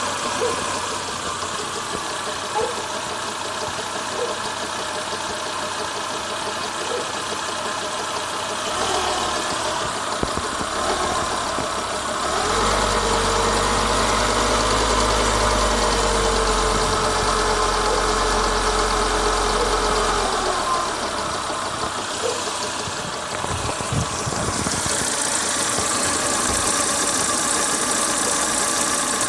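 Renault Logan engine running with a knock, which comes from a worn, defective belt. About halfway through, the engine note rises and holds for several seconds, then settles back.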